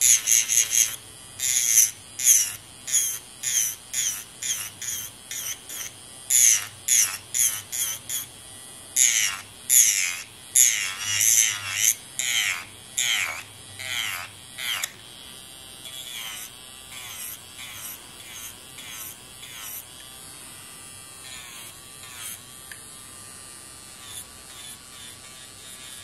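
Electric nail drill grinding gel off fingernails in short repeated passes, about two a second, over a faint steady motor hum. The passes grow fainter and sparser about halfway through. The bit in use is too fine to pull the gel layers off quickly.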